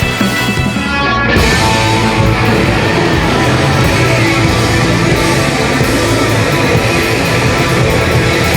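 Loud rock music with guitars. About a second in it turns louder and denser as the full band comes in.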